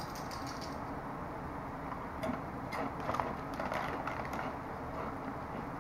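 A person chewing a thick kettle-cooked potato chip: faint, irregular crunches that start about two seconds in and cluster for a couple of seconds. Very crunchy.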